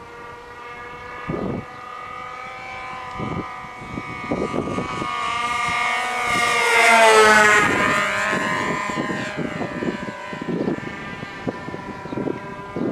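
Twin-engine radio-control model airplane flying past with both engines running at high revs: the engine note grows louder and higher, is loudest about seven seconds in as it passes close, then drops in pitch as it flies away.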